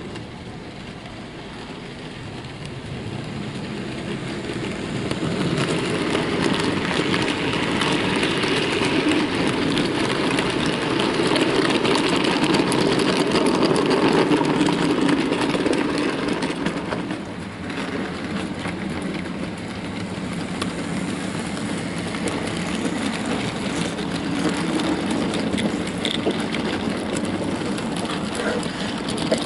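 A Heljan OO gauge Class 14 model diesel locomotive hauling fourteen wagons loaded with real coal. The model's motor and the wagon wheels rumble steadily over the track, growing louder as the train passes close about halfway through, with a brief dip a few seconds later.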